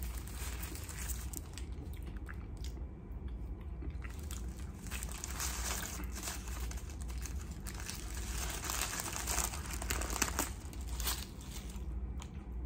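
Paper sandwich wrapper crinkling and rustling as a bagel sandwich is unwrapped by hand, thickest in the middle seconds.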